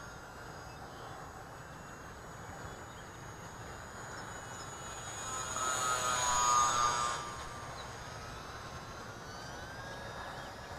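Electric motor and propeller of a UMX Pitts S-1S micro RC biplane whining in flight, swelling loudly as it passes close about six seconds in and then fading back to a faint distant whine.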